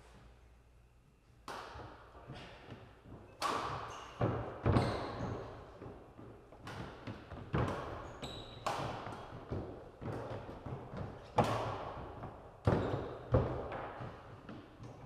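Badminton rally: racket strikes on the shuttlecock and players' footfalls on a wooden court floor, sharp echoing hits every second or so from about a second and a half in, with a few short shoe squeaks midway.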